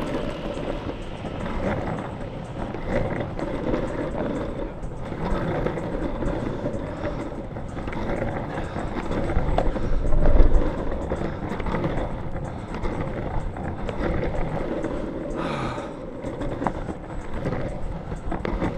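Longboard wheels rolling steadily over pavement, with a louder low rumble about ten seconds in.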